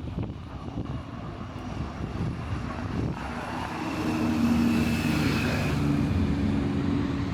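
Engine drone of a passing vehicle over city background noise, swelling about four seconds in and holding a steady low hum, with a faint higher whine riding on it.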